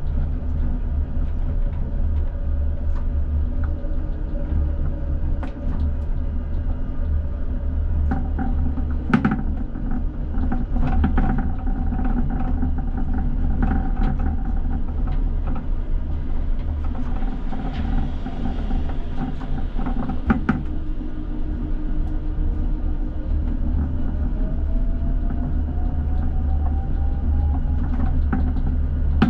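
ČKD Tatra T6A5 tram running, heard from the driver's cab: a steady low rumble of wheels on rail and running gear, with occasional sharp knocks of wheels over rail joints or points. In the last third a whine glides steadily up in pitch.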